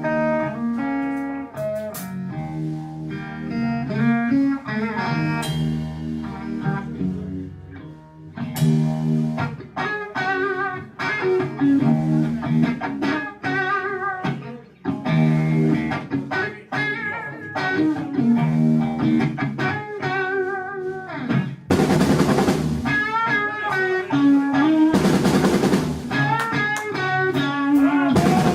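Live electric blues-rock trio playing an instrumental passage: an electric guitar plays a solo of bent, wavering notes over bass guitar and a drum kit. The drums and cymbals come in much harder near the end.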